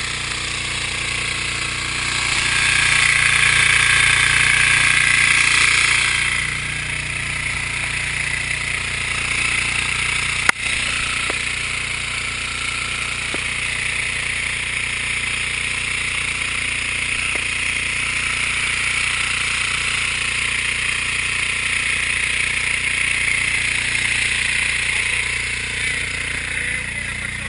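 An engine running steadily under a constant hiss of wind and water. The hiss grows louder for about four seconds near the start, and there is a single sharp click about ten seconds in.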